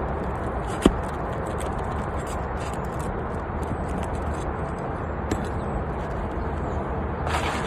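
Asphalt roof shingle being pried loose, its sealant bond breaking: one sharp snap about a second in, a smaller click later, and scraping near the end, over steady background noise.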